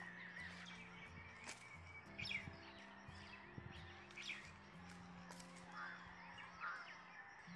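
Soft background music of sustained low notes, with birds chirping over it.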